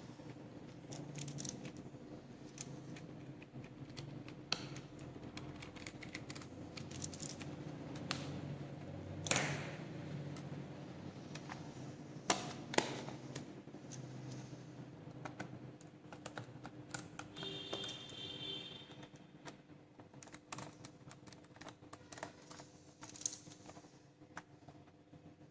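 Small clicks and taps of plastic and metal parts being handled while a laptop is taken apart, with a few sharper snaps, over a faint steady hum.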